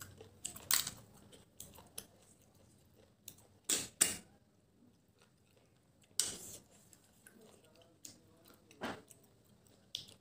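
Eating snails by hand: about six short, sharp slurps as the meat is sucked from the shells, a second or more apart, with faint chewing and small clicks between.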